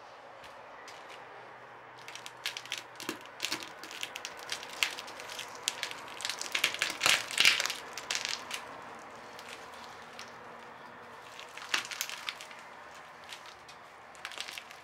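Eggshells of hard-boiled dyed party eggs crackling and crunching under the sole of a Dunlop Thermo+ rubber boot: a few light clicks, then a dense run of sharp cracks loudest in the middle, and a shorter burst later as the boot grinds the remains into the cardboard.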